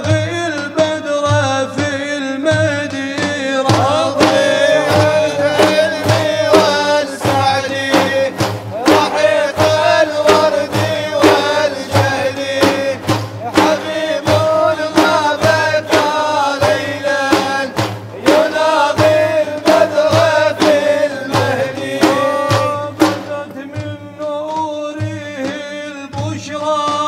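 Male voice singing long, winding held notes of an Islamic devotional praise song (madih), accompanied by large frame drums beaten in a steady rhythm.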